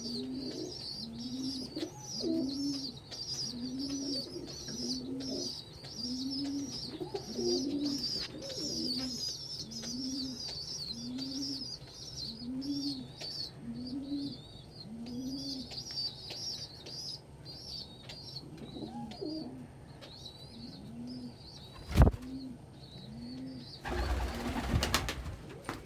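Domestic pigeons cooing: short low arched coos repeated about once a second, over a continuous high-pitched chirping. A single sharp knock comes about 22 seconds in, and a brief rustle comes near the end.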